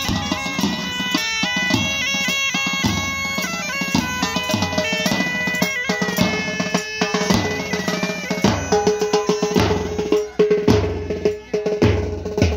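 Marching pipe band playing: bagpipes sound a steady drone under a stepping chanter melody while marching drums beat time. From about nine seconds in the drumbeats become heavier and deeper.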